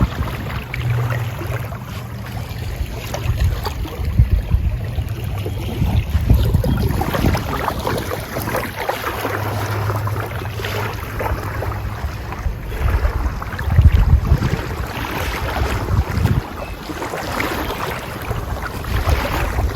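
Wind gusting on the microphone over the wash of small waves on a sandy beach, with the surf swelling louder a little past the middle.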